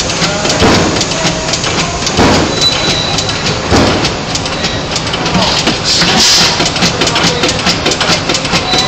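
Hit-and-miss engine running, a rapid mechanical clatter of its moving gear with heavier knocks every second or so.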